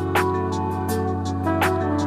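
Background music: sustained chords over a steady bass, with sharp percussion hits about a second and a half apart.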